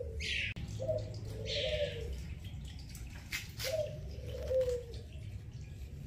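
A dove cooing twice, each call about a second long, over faint water running out of a front-loading washing machine's lowered drain hose.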